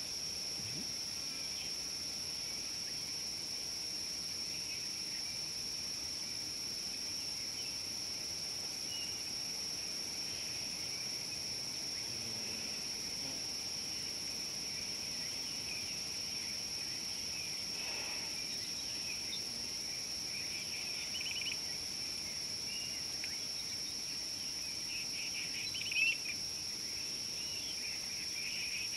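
A steady high-pitched insect drone, with faint scattered bird chirps over it and one louder chirp about 26 seconds in.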